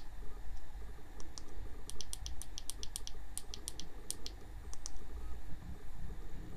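Quick runs of sharp plastic clicks from control buttons or keys being pressed to step through a camera's on-screen settings menu. The clicks stop about five seconds in, over a low steady hum.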